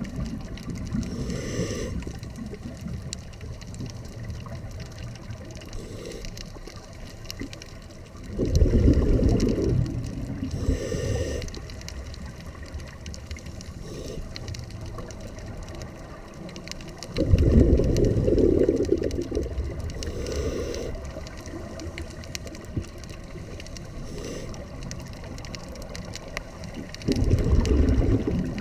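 Scuba diver breathing through a regulator underwater: a bubbling rush of exhaled air about every nine seconds, three times, with a short hiss of inhalation between, over a steady low water rumble.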